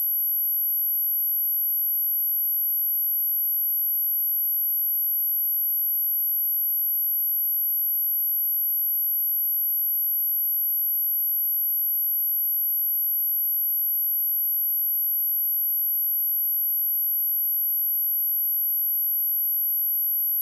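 A steady, high-pitched pure sine tone at 11744 Hz, held without change: a test tone for checking speakers and headphones.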